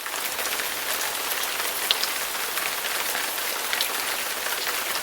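A steady, rain-like hiss with fine scattered crackles, an added sound effect that cuts in suddenly from dead silence.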